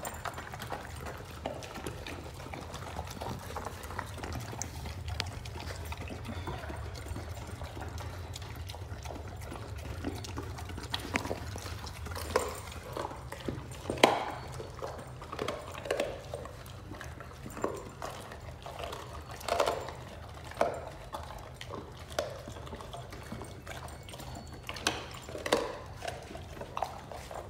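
Great Dane eating wet raw food from a stainless steel bowl: wet smacking and slurping, with knocks of muzzle and food against the metal bowl. These come thicker from about the middle on, the loudest one sharp, near the middle. A steady low hum runs underneath.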